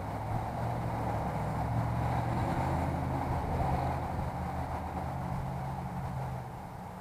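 Steady low engine hum that swells a second or two in and eases off near the end, like a motor vehicle running or passing.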